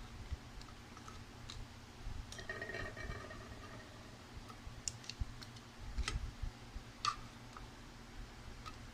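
Faint, scattered clicks and light knocks as pieces of carrot and potato are handled and set in a baking pan, the sharpest about seven seconds in.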